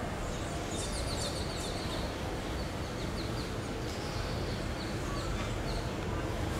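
Birds chirping in quick, high twitters, over a steady low background rumble.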